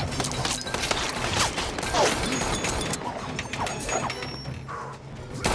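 Action-film soundtrack: a rapid run of pistol gunshots and sharp metallic impacts and clangs, with music underneath.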